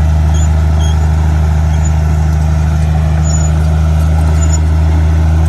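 Heavy diesel engine of an earthmoving machine running steadily under a constant load, with a deep, unchanging drone.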